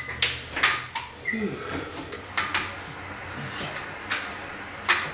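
Home exercise bike clacking and knocking as someone climbs on and settles onto it: a handful of sharp, irregular clacks spread through a few seconds.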